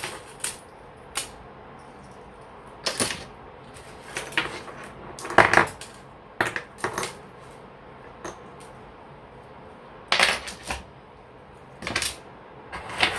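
Small jewellery pieces clicking and clinking as they are dropped and set into a plastic storage box, in irregular taps with a few louder clinks, the loudest about halfway through.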